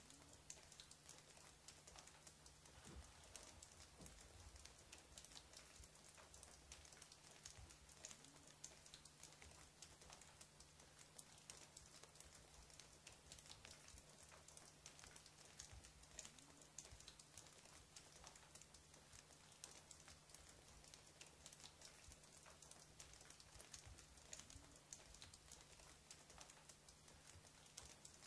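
Near silence: faint hiss and a low steady hum, with scattered faint clicks.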